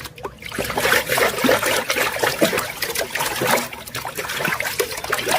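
Water running and splashing over a muddy plastic toy as it is rinsed clean by hand, with scattered small clicks and knocks from the toy being handled.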